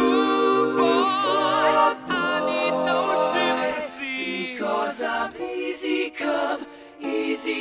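Background music of several voices singing in harmony, a cappella style: long held chords, then shorter, choppier notes from about four seconds in.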